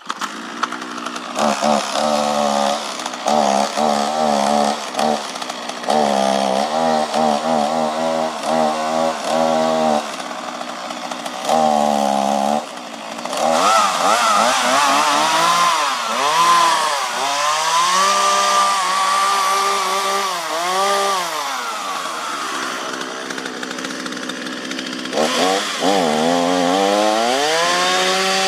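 Petrol chainsaw running and cutting wood, its engine pitch repeatedly sagging and rising again as it revs and takes load, then holding a steady high rev near the end.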